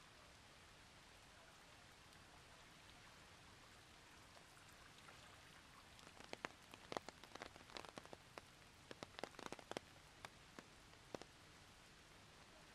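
Faint, steady hiss of rain. About six seconds in, a run of sharp, irregular drip taps begins, as large drops strike a nearby surface; it lasts about five seconds.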